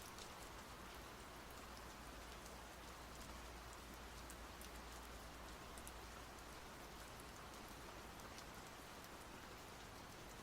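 Faint, steady rain, with scattered individual drops ticking through the steady patter.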